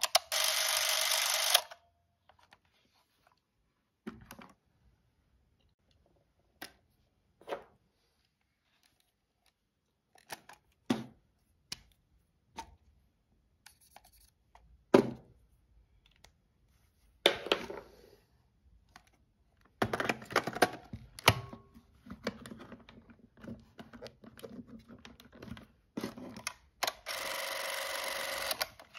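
Canon 514XL-S Super 8 sound movie camera running with a steady whir. The whir cuts off just before two seconds in and starts again about two seconds before the end. In between come scattered sharp clicks and knocks from the camera being handled and its controls worked.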